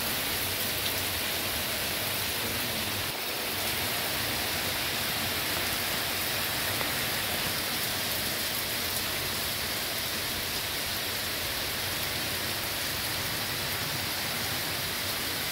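Heavy rain pouring down hard and steadily on trees, lawns and street: a dense, even hiss of downpour.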